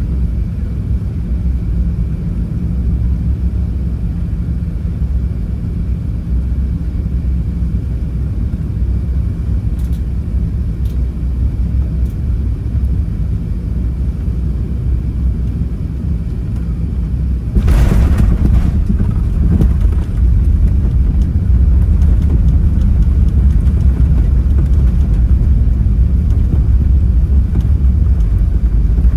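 Cabin rumble of an Airbus A380 on final approach. About two-thirds of the way through it jumps suddenly louder with a brief rush of noise as the aircraft touches down and decelerates on the runway, and the heavier rollout rumble continues after.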